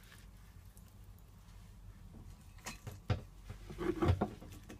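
Hand-handling sounds of herbs being stuffed into whole seasoned tilapia on a tray: a few soft knocks and taps, most of them in the second half, over a faint low hum.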